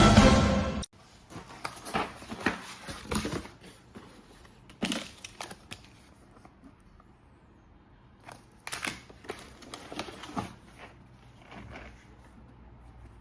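Background music cuts off about a second in, followed by scattered clicks and crinkling as a set of plastic keycaps is handled.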